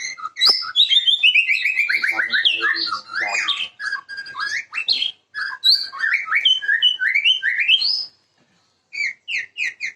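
White-rumped shama (murai batu) singing a fast, varied song of sliding whistles and quick notes, with a brief pause about eight seconds in before it resumes.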